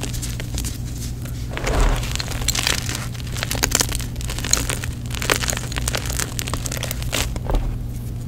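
Hands squeezing and crumbling chunks of dyed gym chalk, a dense run of dry crunches and crackles as the pieces break up, with heavier crushing squeezes about two seconds in and again near the end. A steady low hum sits underneath.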